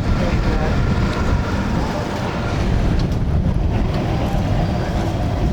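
Muscle-car V8 engine idling steadily, with a deep, continuous rumble.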